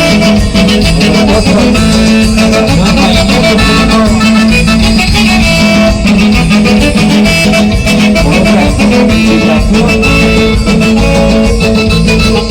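A band playing a chilena, the Oaxacan dance music, with fiddle and guitar over a steady dance rhythm.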